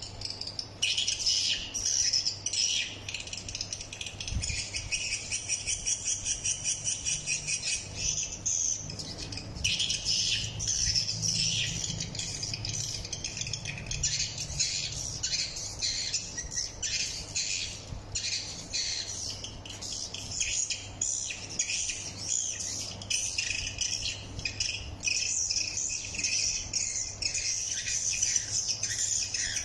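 Edible-nest swiftlet calling sound played through an outdoor lure speaker: dense, rapidly repeated high twittering chirps, with a low steady hum underneath.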